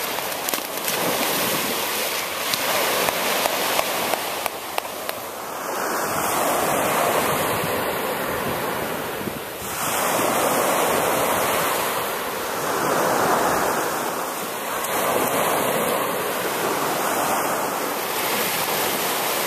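Small surf breaking and washing up the sand, swelling and easing every few seconds, with a few light ticks in the first few seconds.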